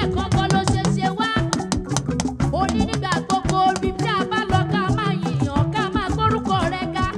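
Upbeat gospel praise music with a steady percussion beat and bass, and a melody that may be sung.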